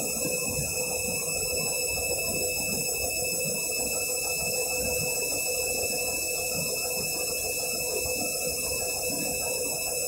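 Candy front-loading washing machine tumbling an over-sudsed load: a steady motor hum with an even tone, over the irregular slosh of water and foam in the drum.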